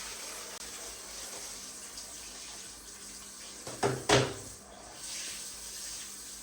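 Water running steadily from a tap, with two sharp knocks in quick succession a little under four seconds in.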